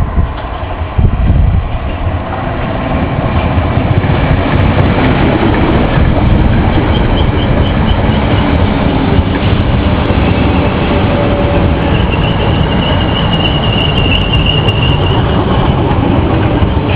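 Class 508 and Class 507 electric multiple units running past and alongside the platform: a steady rumble of wheels on rail that grows louder over the first few seconds as the train nears. A faint high squeal comes about seven seconds in, and a clearer one lasts for a few seconds near the end.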